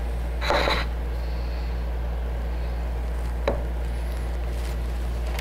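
Hands pressing and settling a glued wooden panel onto a wooden box: a short scraping rub about half a second in and a single light tap or click past three seconds, over a steady low hum.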